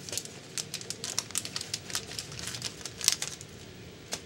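Trading cards being flipped through by hand: an irregular run of quick, light card-on-card clicks and rustles, the loudest about three seconds in.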